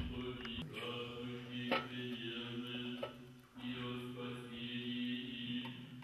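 Men's choir chanting an Orthodox liturgical hymn in long held notes over a steady low note, with a short break in the singing a little past the middle. Sharp clicks stand out at the start and just under two seconds in.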